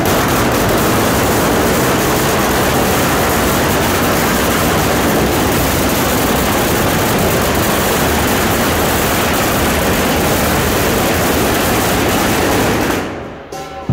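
A long string of firecrackers going off at close range in a dense, continuous crackle that drowns out everything else, dying away near the end.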